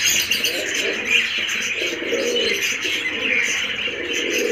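Fantail pigeons cooing in three low, rolling phrases, over a continuous high chatter of small cage birds chirping.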